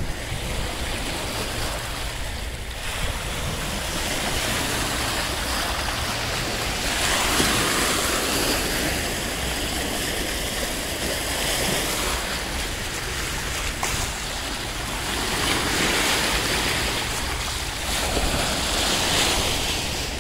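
Caspian Sea waves washing against a stone embankment, with wind rumbling on the microphone. The wash swells louder twice.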